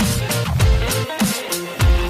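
Background electronic music with a steady beat and heavy bass, the bass dropping out briefly about a second in.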